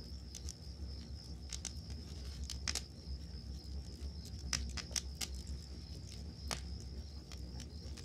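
Wood campfire crackling with scattered sharp pops, a cluster of louder ones about halfway through, over a low rumble. Crickets chirp in a steady high trill in the background.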